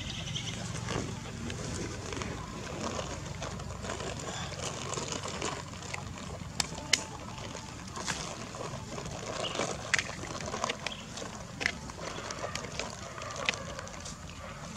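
Dry leaf litter crackling and rustling under a baby macaque scrambling about, with scattered sharp clicks over a steady outdoor hiss.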